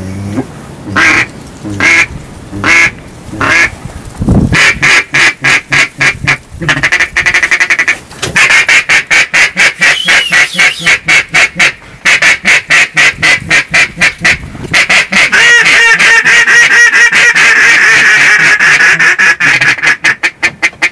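Hand-blown duck call sounded by a hunter: a few single quacks about a second apart, then long runs of rapid quacks, several a second, calling to ducks circling the decoys.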